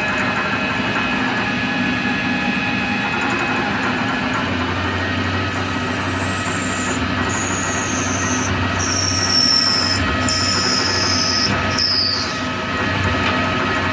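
Tormach 15L Slant Pro CNC lathe parting off a bolt with its cutoff tool. A steady machine hum runs under a high squeal from the cut. The squeal starts about five seconds in, slides slowly down in pitch, breaks off briefly about every second and a half, and stops about twelve seconds in.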